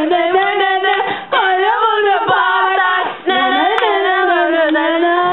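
Young women singing together without words being spoken, in long held, sliding notes, breaking off briefly twice.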